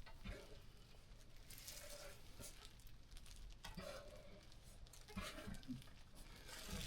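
Faint rustling and soft, wet handling sounds of a hand feeling inside a ewe just after lambing, checking for a second lamb.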